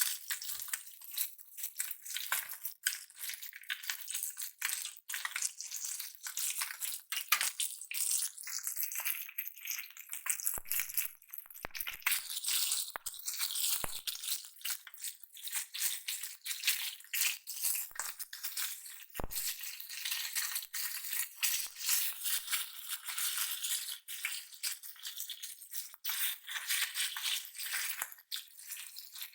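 Marinated fish pieces frying in hot oil: a steady sizzle with dense, continuous crackling and spitting.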